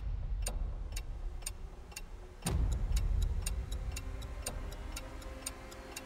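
Suspense music cue built on steady clock-like ticking over a low rumbling swell; a new swell comes in about two and a half seconds in.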